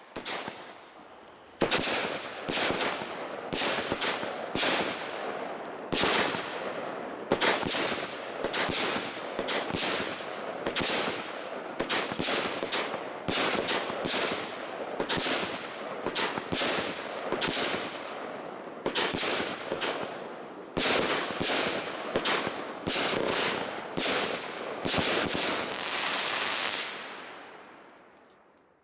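Startrade 'Cross Over' 25-shot fireworks battery firing: a quick series of launches and bursts, about one or two a second, beginning about two seconds in, with crackle between the shots. The shots thin out and the sound dies away near the end.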